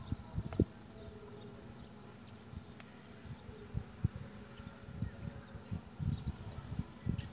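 Steady insect buzzing with a high, even tone. Over it come irregular low thumps and rustles from a caught tilapia being handled close to the microphone while the hook is taken out.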